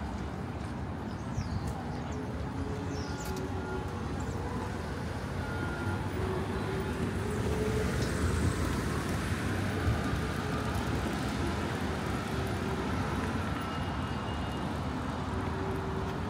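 City street traffic: a steady rumble of cars and other vehicles, swelling as one passes closer about halfway through.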